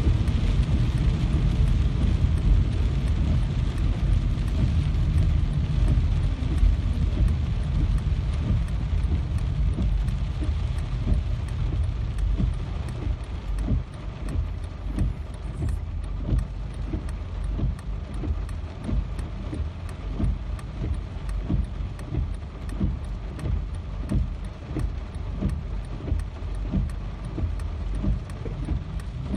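Steady rain with a deep, rumbling undertone. From about halfway through, frequent heavier drops tap on a surface, roughly two a second.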